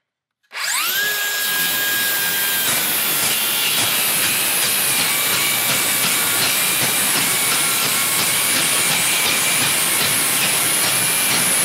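Cordless circular saw with a Crescent NailSlicer carbide blade spinning up about half a second in with a rising whine, then cutting steadily through a board studded with stainless steel nails, a dense crackling of teeth striking nails over the saw's running noise.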